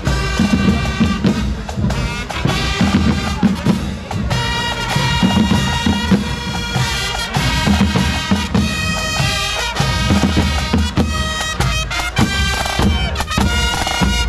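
Marching band playing a march as it passes: trumpets and other brass carry the tune over drums and a bass drum beat.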